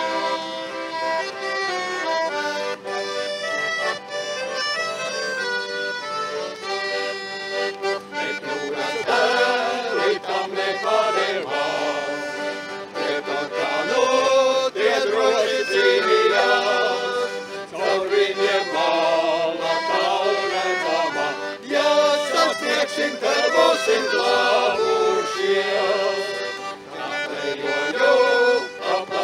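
Accordion playing a folk tune, with men's voices joining in song from about nine seconds in.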